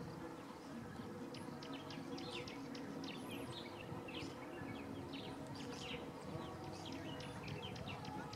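Small birds chirping in many quick, short calls, over a faint steady background drone.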